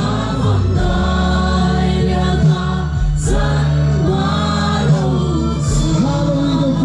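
Live gospel worship music: an amplified band with lead vocals, and many voices singing along.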